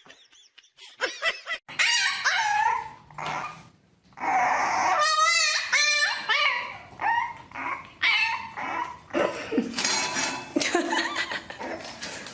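A dog barking and whining in a series of short yips and cries, with a longer wavering whine about five seconds in.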